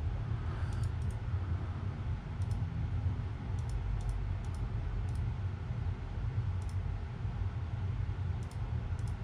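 Computer mouse clicking, about ten short single and double clicks spread out, over a steady low hum.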